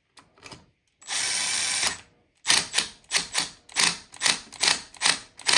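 A power driver runs briefly for about a second, then gives a run of about ten sharp clicks in an even rhythm, a bit under three a second, as a metal screw is driven back in tight.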